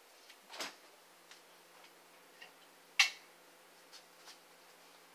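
Scattered light knocks and footsteps as someone goes to a refrigerator and reaches into it, with one sharp click about three seconds in and a smaller knock near the start, over a faint steady low hum.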